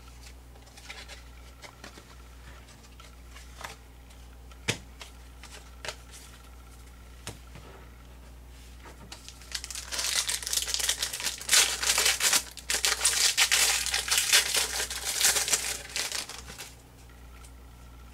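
A trading-card pack wrapper crinkling and tearing as it is opened and handled, dense and loud for about seven seconds from around ten seconds in. Before that there are light scattered taps and clicks of cards being handled on the countertop.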